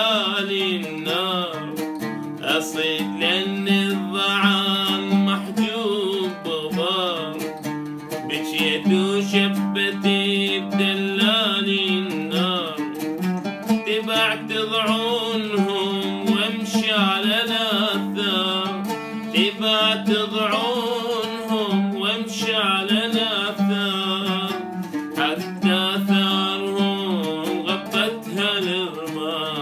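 A man singing in long, wavering melismatic lines, accompanying himself on a plucked oud.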